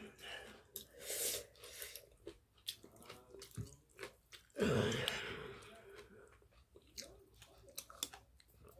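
Close-up chewing of spicy webfoot octopus mixed with rice and bean sprouts: wet, clicking mouth sounds. There is a louder breathy sound about halfway through.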